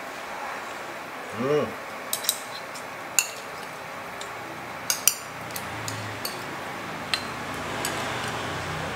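Chopsticks and a spoon clicking against ceramic bowls as people eat: scattered light, sharp clicks. A short voice sound about a second and a half in.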